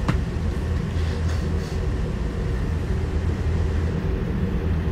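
Steady low rumble of a tour bus heard from inside, with no talking; a short click sounds right at the start.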